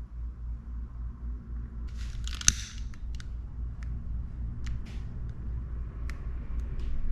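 Small clicks and taps from handling a fishing rod tip and a small brush, with a short rustle and one sharp click about two and a half seconds in, over a steady low pulsing hum.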